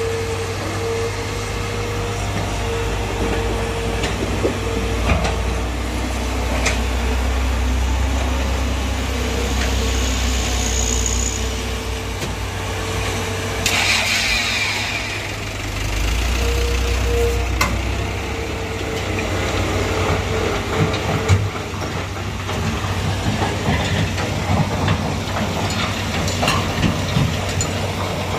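Heavy diesel engine of a hydraulic excavator running while it digs sand and loads a dump truck. Its low drone grows heavier twice as it works under load, with a whine that comes and goes and scattered knocks and clatters.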